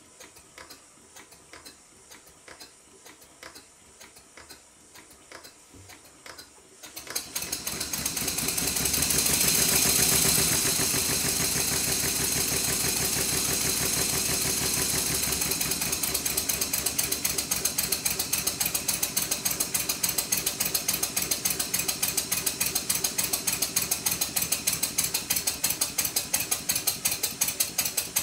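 Stuart Twin Victoria twin-cylinder model mill engine running on compressed air. At first it turns slowly with a soft clicking beat. About seven seconds in it picks up speed sharply into a loud, fast, even exhaust beat, which it keeps up.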